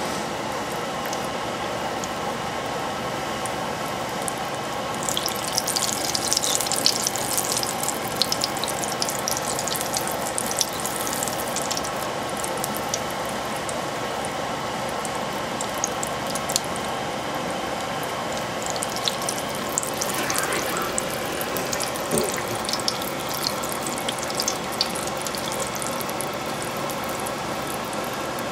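Hostess snack cake on a wooden skewer deep-frying in a pot of oil: a dense crackle and popping of sizzling oil, heaviest from about five to twelve seconds in and again around twenty seconds in, over a steady droning hum. The oil is a little too hot, its temperature guessed without a thermometer.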